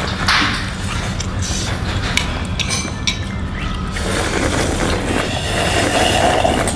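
Spoon clinks against a ceramic bowl in the first seconds, then spicy meatball broth is slurped and gulped straight from the bowl during the last few seconds, over low background music.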